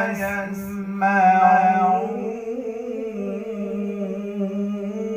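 A man's voice in melodic Quran recitation (tajweed), drawing one long ornamented phrase out on a held, gently wavering pitch. It carries on more softly after about two seconds.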